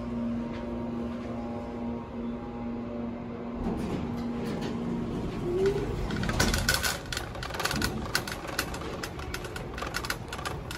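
A steady elevator hum for about the first five seconds, then a plastic Target shopping cart being pushed out across the floor, its wheels and wire basket rattling and clicking rapidly.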